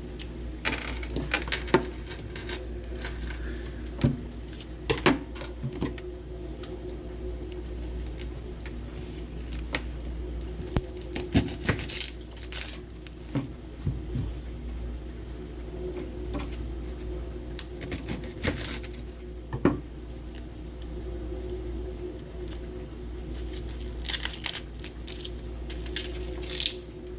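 Kitchen handling sounds: scattered clicks, knocks and short rustles of dishes and packaging being handled, over a steady low hum.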